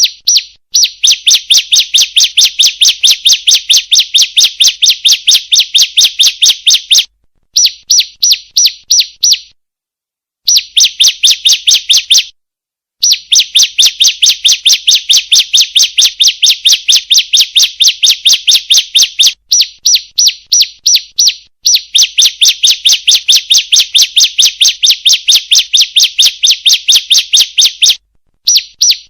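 Female bar-winged prinia (ciblek) calling: long runs of sharp, high chirps repeated about five times a second, broken every few seconds by short pauses.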